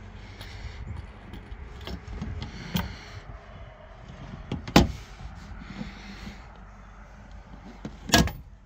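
Hinged Corian solid-surface lid on a boat console sink being opened and handled: a few knocks and thumps with rubbing between them, the sharpest about five seconds in and another near the end.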